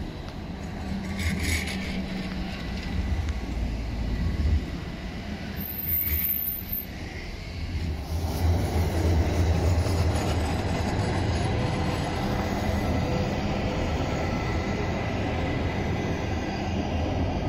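A CAF-built articulated Stockholm tram running past close by, a steady low rumble of wheels on rails with a faint steady whine above it, mixed with road traffic; the noise swells about eight seconds in as a car passes in front.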